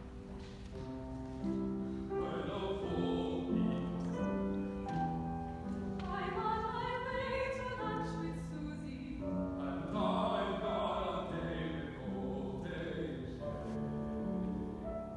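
Classical, operatic-style singing with piano accompaniment; the voice comes in about two seconds in over the instrumental introduction.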